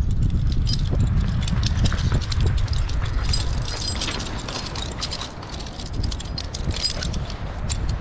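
Metal climbing hardware, carabiners and rope devices, clinking and jangling in many quick irregular clicks, over a constant low rumble of wind on the microphone.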